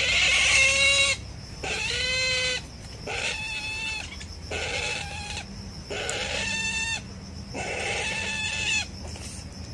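A trapped ferret-badger squealing over and over, about seven loud calls of roughly a second each with short pauses between, as it is held down by hand: distress calls of a caught animal.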